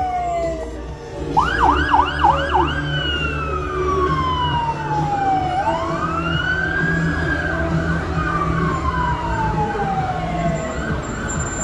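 Emergency vehicle's electronic siren: a quick run of about four yelps about a second in, then a slow wail that falls, rises and falls again. A vehicle engine runs low underneath.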